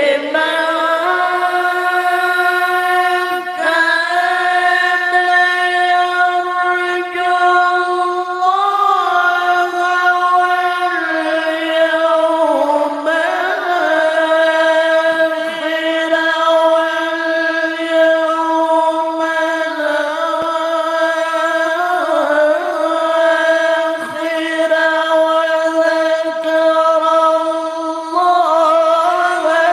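Male voice reciting the Qur'an in melodic tilawah style, holding long, steady notes with brief ornamental turns and a rise in pitch near the end.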